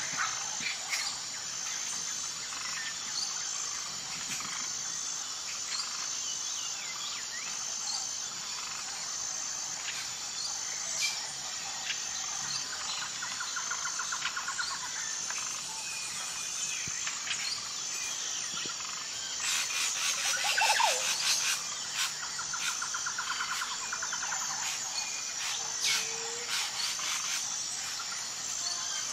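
Tropical forest ambience: birds chirping and calling over a steady chorus of insects, with a regularly pulsing high insect note throughout and fast buzzing trills coming in now and then. A louder falling bird call stands out a little past two-thirds of the way through.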